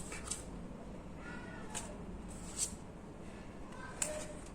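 Oracle cards being handled: a few soft, brief swishes and taps of card stock, about four in all, with faint short gliding chirp-like tones in the background.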